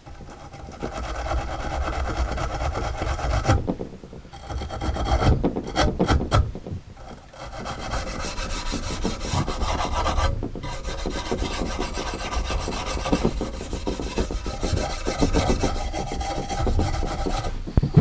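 Rasping, rubbing work on a chainsaw guide bar with its stuck nose sprocket, running in long stretches broken by a few short pauses.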